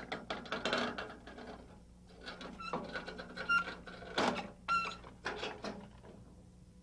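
Irregular mechanical clatter: a string of knocks and clicks, a few of them ringing briefly, over a steady low hum.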